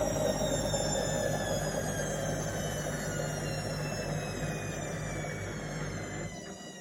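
Indesit washing machine slowing down at the end of its spin cycle: the drum's whine falls steadily in pitch and gets quieter, and the low rumble cuts off near the end.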